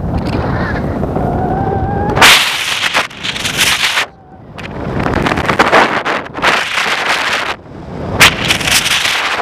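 Wind buffeting the microphone in paragliding flight: loud rushing gusts that come and go, with brief lulls about four and seven and a half seconds in.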